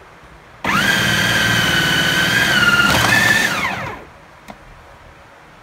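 Electric food processor shredding cheddar cheese. Its motor switches on about half a second in and runs with a steady whine for about three seconds, then winds down with a falling pitch and stops.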